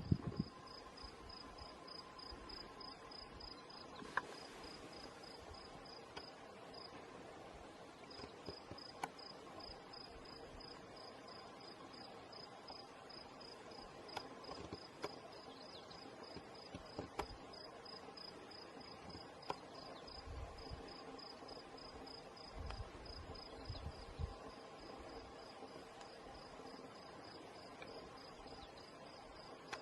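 A cricket chirping in a steady, rapid, even train of high pulses, about four a second, which pauses briefly about seven seconds in. A few faint ticks are scattered through it.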